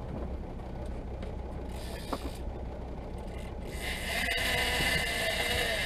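Big-game fishing reel whirring under load with a bluefin tuna on the line, much louder from about four seconds in, over the low steady hum of the boat's engine.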